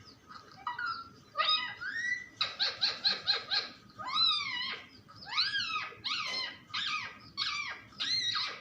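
Pet parrot giving a string of short, harsh calls that rise and fall in pitch. Near the middle they come in a quick run of about six a second, then as single calls spaced half a second or so apart.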